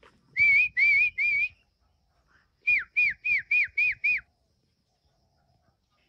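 A man whistling through his lips to call back released crested mynas: three rising, wavering notes, then a run of six quick notes that each fall in pitch. No bird answers.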